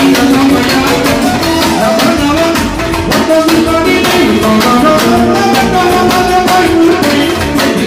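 Live manele music: a man singing into a handheld microphone, with violin accompaniment and a steady beat.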